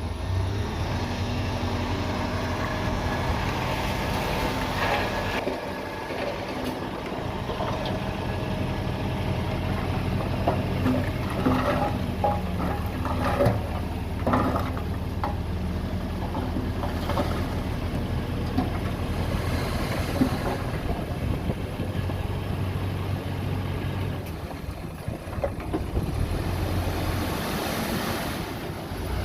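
Heavy diesel engine of earthmoving machinery running steadily, with scattered clanks and knocks that bunch up around the middle.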